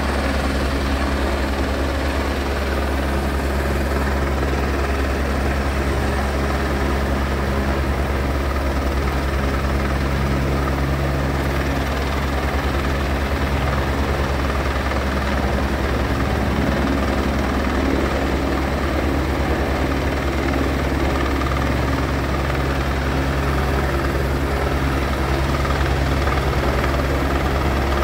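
Helicopter with a three-bladed main rotor running steadily overhead while carrying a long line, its rotor beating at a constant low pulse over the turbine noise.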